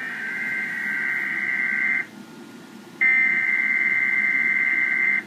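Emergency Alert System SAME header: two bursts of harsh, buzzing digital data tones, each about two seconds long with a second's gap between them. They encode a Child Abduction Emergency alert.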